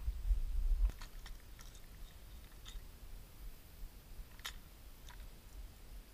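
Scattered light clicks and rattles from a clear plastic tackle box and the lures in it being handled, one sharper click about four and a half seconds in. A low rumble on the microphone fills the first second.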